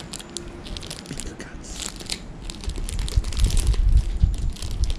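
Plastic snack wrapper crinkling and crackling as it is handled and opened, with a low rumble underneath in the second half.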